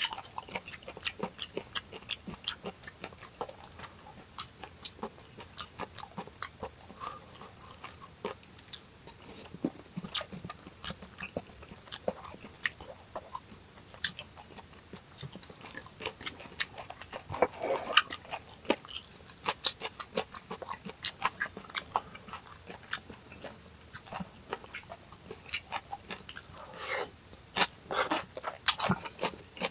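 A person chewing food, with many quick wet mouth clicks and smacks in an irregular rhythm.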